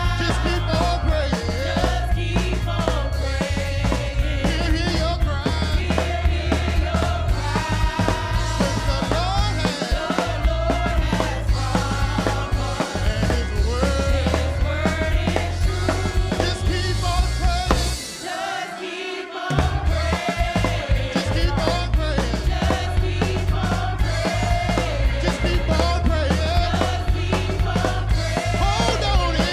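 Gospel worship music: a band with drums and heavy bass playing under singing. The bass and drums drop out for about a second and a half about two-thirds of the way through, then come back in.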